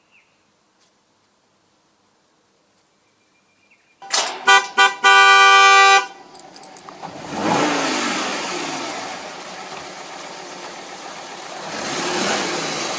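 Near silence, then a car horn: a quick run of short toots about four seconds in, followed by one long blast lasting about a second. After it comes the noise of a car pulling up on gravel, its engine and crunching tyres getting louder near the end.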